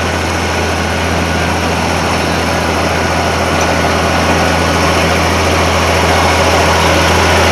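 Farm tractor engine running hard at steady revs as it pulls down the track, growing gradually louder as it comes closer.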